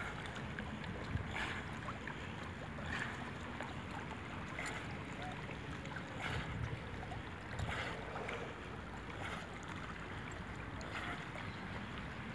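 Lake water lapping and splashing, with a short slap about every second and a half, over low wind rumble on the microphone.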